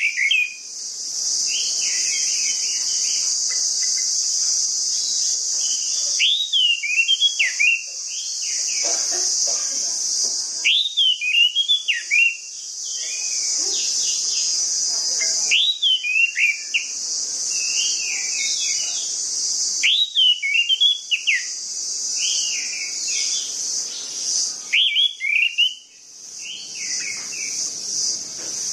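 Male orange-headed thrush singing: bursts of quick rising and falling whistled notes, each a couple of seconds long and repeated every four to five seconds. A steady high hiss runs underneath.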